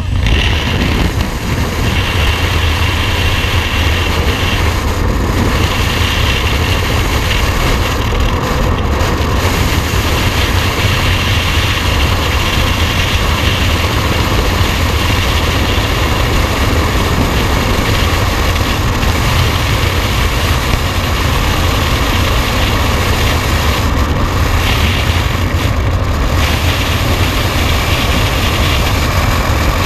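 Steady, loud rush of freefall wind blasting over a camera's microphone during a skydive.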